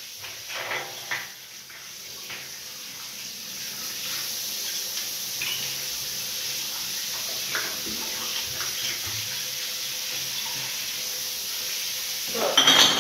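Water running from a hand-held shower head into glass beer bottles in a bathtub, a steady hiss of spraying water. The bottles clink a few times in the first second or so, and a loud clatter of glass comes near the end.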